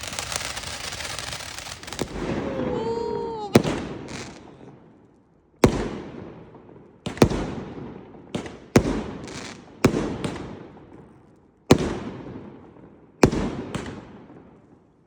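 Fireworks going off: a continuous crackling hiss for the first few seconds, then a run of about eight sharp bangs a second or two apart, each ringing out and fading slowly.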